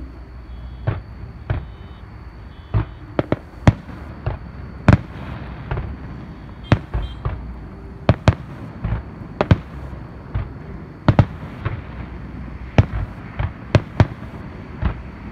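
Aerial fireworks shells bursting in an irregular series of sharp bangs, about two a second at the busiest, over a steady low background rumble.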